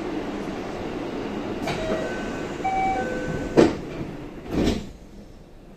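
Door-closing sequence on a JR West 323 series commuter train stopped at a station: a short electronic door chime of a few tones, then the doors shut with two thuds about a second apart, after which the platform noise drops away.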